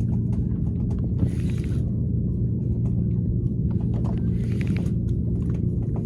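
A boat's engine running steadily as a low drone, with two short bursts of hiss about a second in and near the end.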